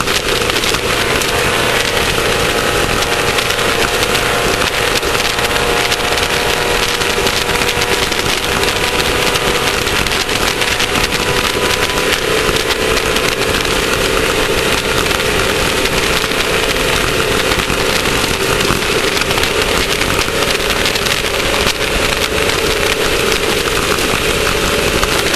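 Class 1600 off-road race car's air-cooled four-cylinder VW engine running hard at a steady speed, under a constant rattling and knocking of the car over rough ground.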